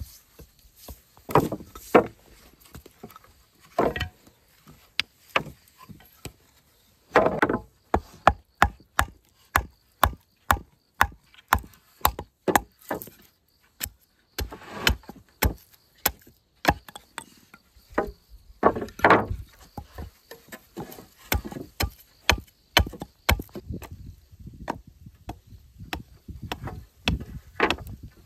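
Sharp blows of a tool striking wooden boards: scattered single knocks, then a steady run of about two or three strikes a second for several seconds, with a few heavier, duller knocks in between.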